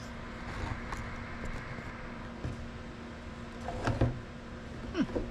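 Handling noise from a plastic ATV soundbar on a steel rack: scraping and light clicks, then a sharp knock about four seconds in. A steady hum runs underneath.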